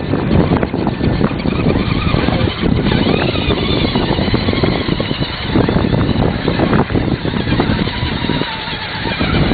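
Radio-controlled scale 4x4 trucks driving through shallow water: electric motor and gear noise with splashing, running continuously.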